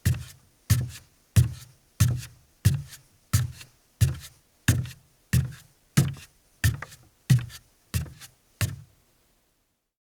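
A man's bare feet walking on a wooden deck, each step a dull thud, at a steady pace of about three steps every two seconds; the steps stop near the end.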